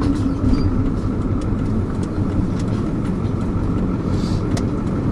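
Ambulance in motion heard from the cab: steady engine and road noise, a low rumble.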